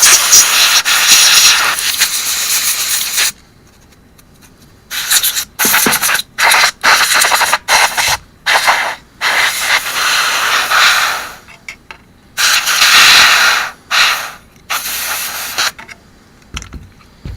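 Can of compressed-air duster spraying in hissing blasts: one long blast of about three seconds, then a string of quick short bursts and a few longer ones.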